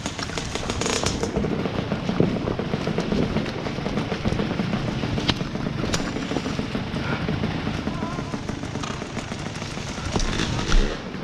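Two-stroke dirt bike engine running with irregular popping and crackling.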